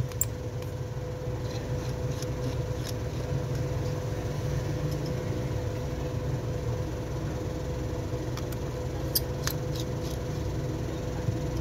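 A steady electrical hum from workbench equipment, with scattered light clicks of small tools handling a phone's parts; several clicks come close together about nine seconds in.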